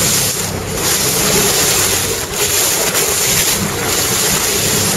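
Water rushing and splashing at the bow of a moving boat, with wind buffeting the microphone and a steady low engine hum underneath.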